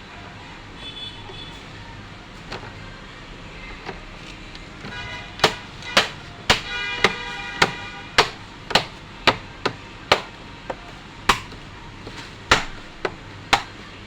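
A series of sharp clicks, about two a second, beginning about five seconds in, with a brief ringing tone under the first few.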